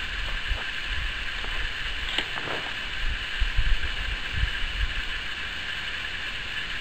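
Wind buffeting the microphone in irregular low rumbles over a steady high hiss, with one sharp snap about two seconds in.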